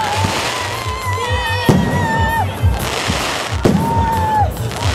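Aerial fireworks shells bursting, with two sharp bangs about two seconds apart, over music with a steady beat and a held melody line.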